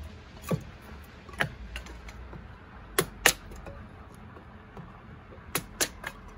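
Hatchet chopping kindling on a wooden chopping block: a series of about eight sharp chops, irregularly spaced, with the loudest pair about three seconds in and a quick run of three near the end.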